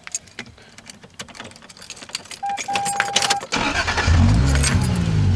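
Ignition keys jangle as the key goes in, a dash beep sounds briefly, then the Toyota 1JZ-GTE twin-turbo straight-six cranks and catches about three and a half seconds in, flaring up in revs and dropping back to a steady idle. It breathes through an open pod filter fitted in place of the stock airbox.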